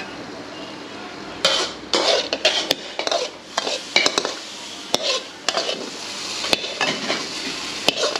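Metal ladle scraping and knocking against a steel wok as a vegetable stir-fry is scooped out onto a plate: repeated scraping strokes from about a second and a half in, with sharp metallic clinks between them.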